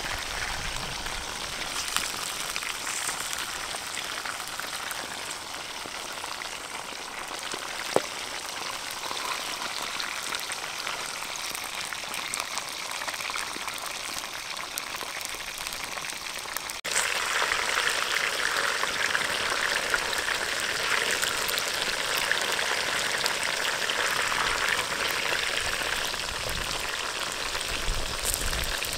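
Whole fish and banana blossom frying in hot oil in a pan over a wood fire: a steady crackling sizzle with an occasional sharp click. It gets suddenly louder about two-thirds of the way through.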